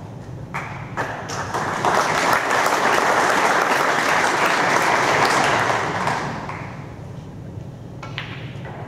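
Audience applauding a potted ball at a snooker table, starting about a second in, swelling and then dying away after about six seconds. A single sharp ball click comes near the end.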